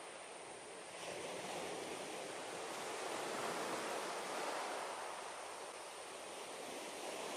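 Steady rushing of water circulating in a live crab tank, getting a little louder about a second in and then swelling and easing slightly.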